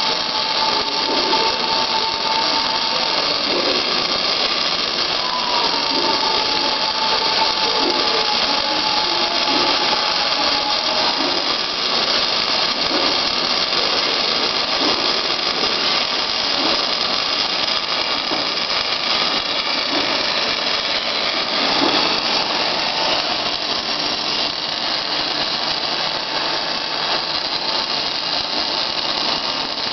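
Robotic MIG welding arc running continuously, a steady crackling hiss as the robot welds around the inside of a steel ring. A thin steady whine sounds over it for the first few seconds and again for several seconds a little later.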